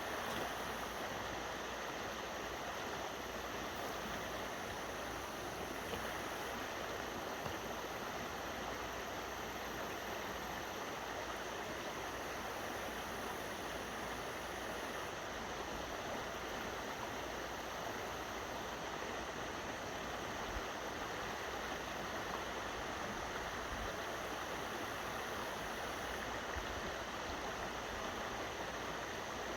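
Steady rush of river water running off below a dam.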